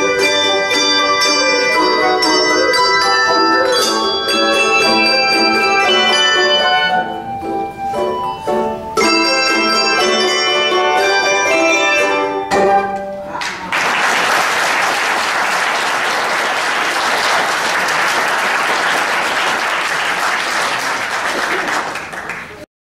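Handbell choir ringing the closing chords of a piece, many bells struck together with brief pauses, ending on a final chord about twelve seconds in. Audience applause follows and cuts off suddenly near the end.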